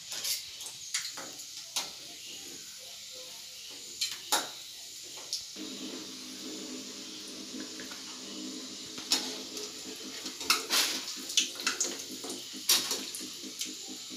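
Metal spoon clinking and scraping against a steel kadai as food is stirred and turned, in sharp irregular clicks that come faster in the second half. A steady hiss runs underneath.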